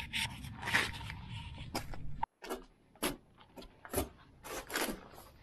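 Short scraping and rubbing sounds of things being handled, in a run of separate strokes, with the sound dropping out for a moment a little over two seconds in.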